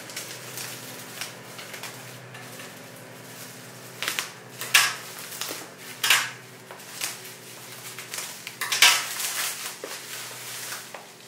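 Plastic bubble wrap rustling and crinkling as it is handled and pulled off a boxed camera. Irregular sharp crackles come thickest from about four to nine seconds in.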